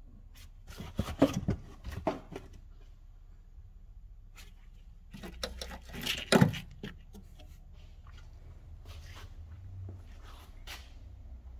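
Rustling and scraping handling noises in two bursts, about a second in and again around six seconds in: a gloved hand rubbing and prodding the rusted, flaking floor pan of the stripped car.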